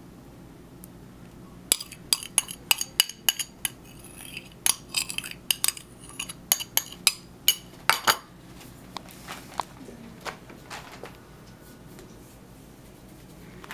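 Metal spoon clinking and scraping against a bowl and a metal baking sheet while sauce is scooped and spread, in a quick run of sharp taps that starts about two seconds in and thins out after about eight seconds.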